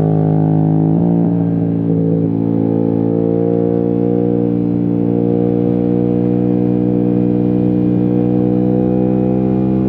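Yamaha MT-07's 689 cc parallel-twin running through a full titanium exhaust with no dB killer, under way at steady throttle. The note breaks briefly about a second in, then holds steady and climbs slowly.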